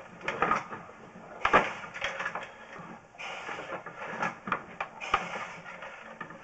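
Irregular clicks, knocks and scraping as a sewer inspection camera's push cable is fed deeper into the drain line, with a few short stretches of rushing noise.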